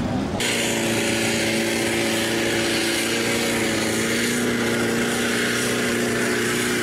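Off-road 4x4 pickup's diesel engine held at steady high revs under heavy load as it ploughs through deep muddy water, with a constant rush of splashing spray.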